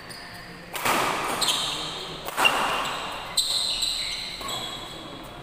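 Badminton rally: rackets striking the shuttlecock about three times, each sharp hit ringing on in the hall's echo, with sneakers squeaking on the court between shots.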